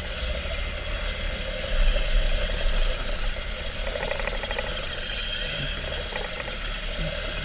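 A remote-controlled tunnel robot's drive running with a steady whine and a rattle as it crawls along. It rumbles louder for about a second, some two seconds in, and clatters briefly around four seconds in.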